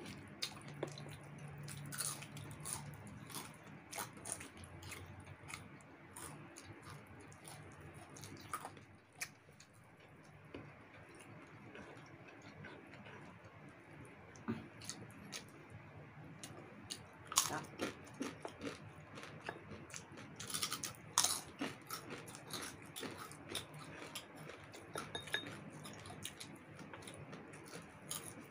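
Chewing and crunching of roast chicken and crispy fried chicken skin, with wet mouth clicks and the rustle of hands tearing the food. A few sharper crunches come about two-thirds of the way through.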